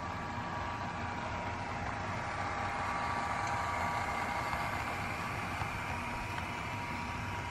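HO scale model Santa Fe diesel locomotive and freight cars running past on the track, with a steady whine. It gets louder as the locomotive passes, about three to four seconds in.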